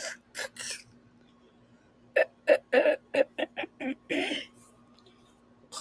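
A girl clearing her throat: a few short breathy puffs, then a quick run of about eight short throaty catches and one longer rasping clear.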